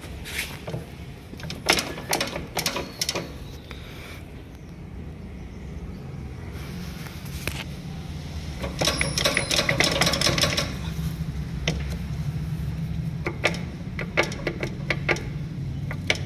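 New Holland tractor's diesel engine idling with a steady low drone, with scattered metallic clicks and knocks over it and a louder clattering stretch from about nine to eleven seconds in.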